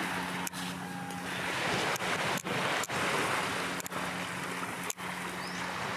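Small waves washing onto a sandy beach: a steady hiss of surf.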